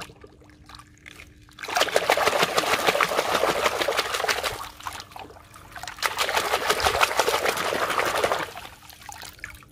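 Water splashing and sloshing in a metal basin as a hand scrubs a toy vigorously under the surface, in two loud bouts of about three seconds each, with a short lull between.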